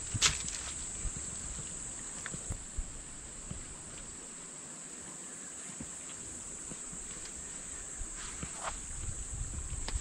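Steady high-pitched insect chorus, with a few faint clicks and rustles.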